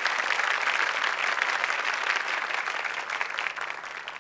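Studio audience applause, dense clapping that thins out and fades near the end: a game-show applause sound effect.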